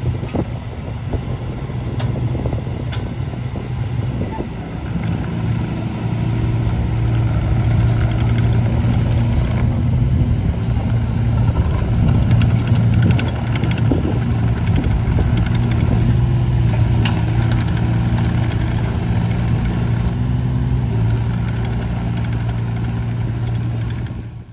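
Kubota U17 mini excavator's diesel engine running steadily while the boom and bucket are worked. It gets louder about six seconds in, with a few light knocks along the way, and fades out at the end.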